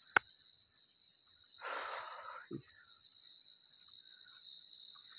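Crickets chirping in a steady, high-pitched chorus. A single sharp click just after the start stands out above it, and a short rustle comes about two seconds in.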